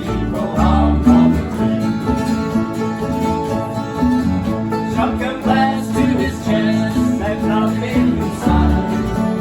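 Bluegrass-style acoustic music: banjo and guitar picking over a steady, rhythmic bass.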